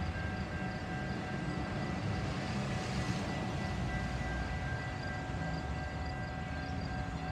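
Metra commuter train with an MP36 diesel locomotive coming in: a steady low engine rumble with a few steady whining tones over it.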